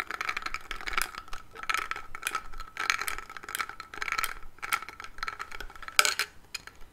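Close-up tapping and clinking, a stream of quick irregular clicks over a steady high ringing tone, with one louder click about six seconds in.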